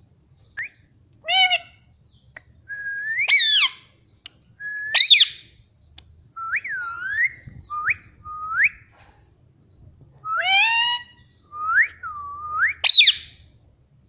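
Indian ringneck parakeet giving a string of short whistled calls, about a dozen, each sweeping up and down in pitch, with brief pauses between them.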